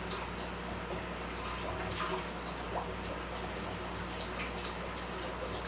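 Fish room ambience: a steady low hum of aquarium equipment with running water, and scattered faint drips and small splashes.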